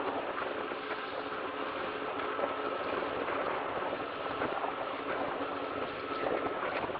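Steady rushing noise of a camera moving along a tarmac path, with a faint hum and a few light clicks.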